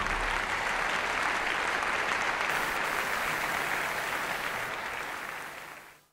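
Opera audience applauding in a theatre, fading out near the end.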